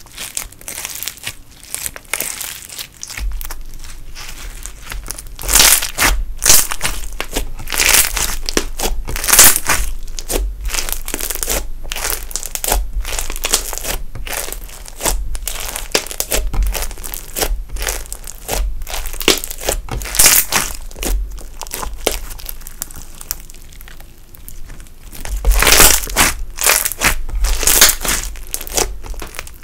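Glossy slime packed with foam beads being stretched, folded and squeezed by hand, giving dense, irregular crackling clicks and pops in bursts, with a low rumble of hand pressure underneath.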